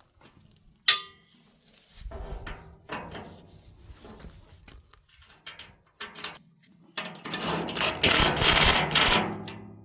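A metal part clinks once about a second in, then a small electric power tool, likely a cordless drill or driver, runs in spells, loudest for the last few seconds, as a bolt is run in through a rubber piece and a bracket.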